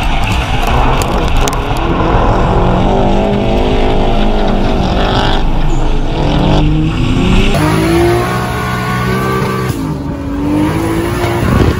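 Drift cars in a tandem slide: engines running at high revs, their pitch rising and falling as the throttle is worked, over screeching tyres.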